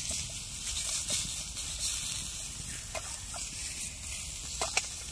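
Sausages sizzling as they fry in a metal lunchbox lid used as a frying pan: a steady hiss with a few crackles and pops, the loudest near the end.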